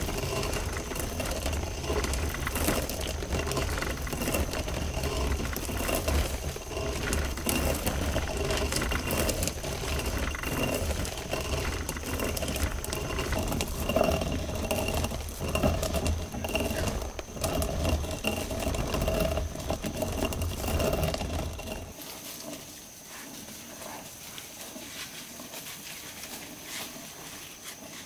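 Hand-turned stone mill grinding grain: stone grating on stone with a steady low rumble and small knocks as the upper stone is turned. About two thirds of the way through the grinding stops and a much quieter background is left.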